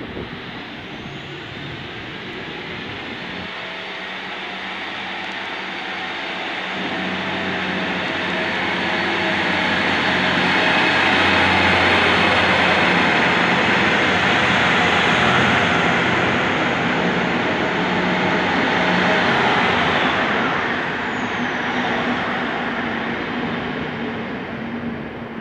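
Two coupled DM'90 'Buffel' diesel multiple units pulling away and running past: the underfloor diesel engines working under load with a steady drone, growing louder as the train passes close by around the middle, then fading as it moves off.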